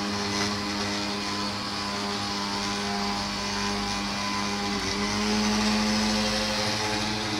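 Electric mixer grinder running steadily while grinding tomatoes, a steady motor hum whose pitch shifts slightly about five seconds in.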